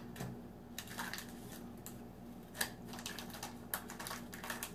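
Baseball trading cards being flipped through and handled by hand: light clicks and snaps of card against card, coming at uneven intervals.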